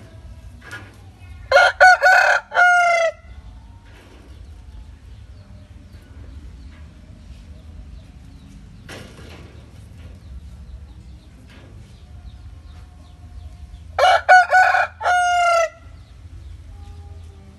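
Aseel gamecock rooster crowing twice, about twelve seconds apart. Each crow is a few short notes ending in a longer note that falls in pitch.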